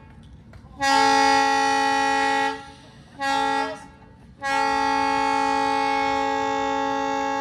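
Air horn sounding three blasts: a long one of about two seconds, a short one, then a longer one of about three seconds. Each is a single steady pitch.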